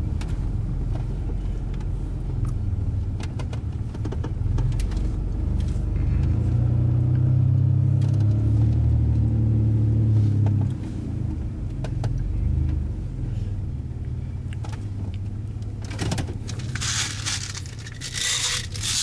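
A car running, heard from inside the cabin as a steady low rumble that swells around the middle and then eases, as if the car slows to park. Near the end there is a burst of rustling and scraping.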